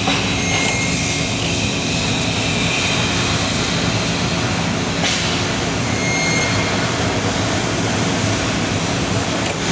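Steady mechanical drone with a low hum, unchanged throughout, from machinery running in a metal fabrication shop.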